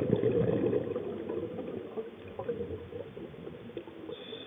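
Water bubbling and gurgling in an irregular, continuous stream, loudest at first and fading down over the first couple of seconds.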